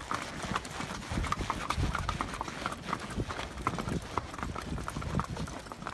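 Hooves of several ridden horses clip-clopping at a walk, an irregular run of overlapping hoofbeats.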